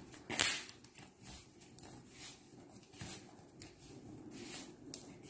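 Hands tossing raw diced chicken in seasoned flour in a plastic bowl, faint throughout, with one sharp knock about half a second in.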